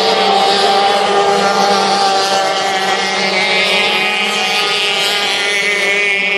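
Several small two-stroke racing outboard engines (O-250 and O-350 class boats) running flat out at high revs, their engine notes overlapping at different pitches, fairly steady throughout.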